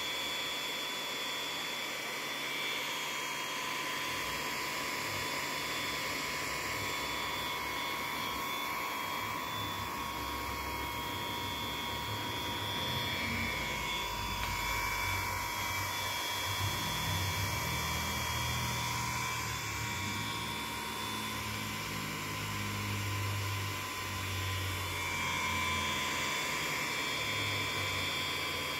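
Murata D1U-W-2000-48-HB4C power supply's small high-speed cooling fan running with the unit powered up, a steady rushing whine with several high tones. A low rumble comes and goes in the second half.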